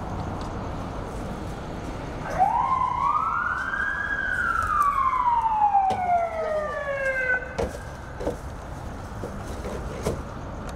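An emergency vehicle siren sounding one long wail: it starts about two seconds in, rises quickly, then falls slowly over the next few seconds, with a few faint clicks and knocks in the background.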